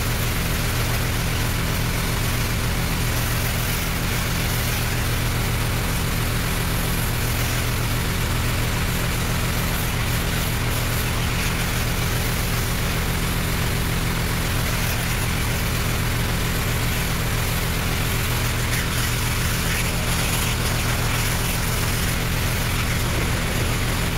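Pressure washer's engine running steadily with a constant hum, under the hiss of water spraying from the wand's 40° low-pressure rinse tip against the house siding.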